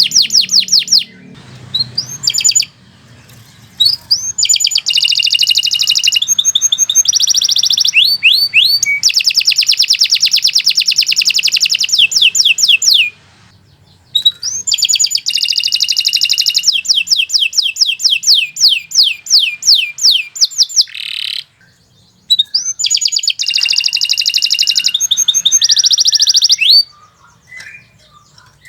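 Domestic canary singing long, loud phrases of rapid trills and fast repeated sweeping notes, broken by a few short pauses.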